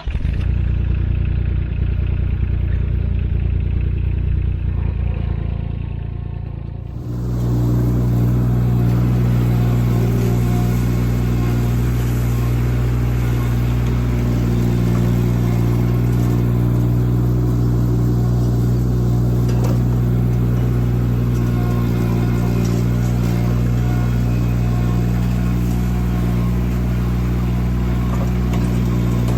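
Cormidi C1500 mini skid steer's engine running under load. About seven seconds in it switches to a louder, steadier hum that holds.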